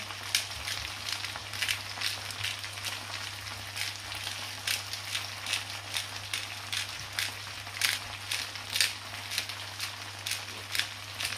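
Cod pieces frying in oil in a pan: a steady sizzle broken by frequent irregular crackles and pops of spitting oil.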